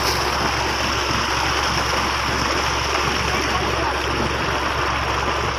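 Water gushing from a large pipe outlet into a pond, a steady rushing, churning splash of the stream hitting the surface.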